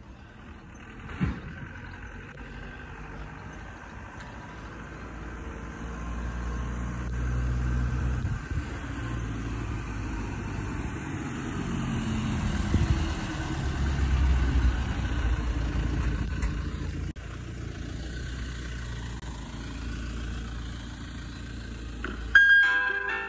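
An ice cream van's engine running as the van drives up, growing louder as it comes closer. About a second before the end, its chime tune starts to play.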